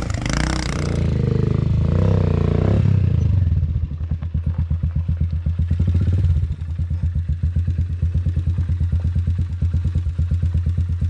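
Dirt bike engine revving under load for the first few seconds, then settling into a steady, low, evenly pulsing idle.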